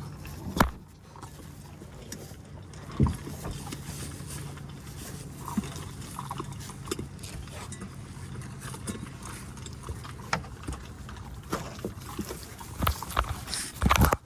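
English mastiff puppies playing: scattered scuffles, footfalls and sharp knocks, thickest near the end, over a steady low hum.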